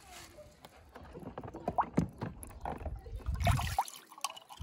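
Water sloshing and splashing in a plastic tub as a hand stirs under the surface and lifts a small toy car out. The splashing is heaviest about three seconds in.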